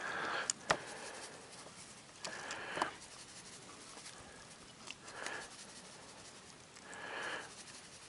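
Faint, soft hissing shakes of a seasoning shaker sprinkling dry seasoning onto raw rabbit pieces: four short shakes about two seconds apart, with two light clicks in the first second.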